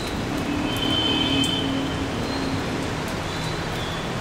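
Heavy rain falling steadily. A held tone runs over it for about two seconds, starting about half a second in, and a few light drip ticks sound.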